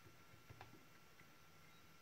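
Near silence: room tone with a faint steady high whine and a couple of faint clicks about half a second in.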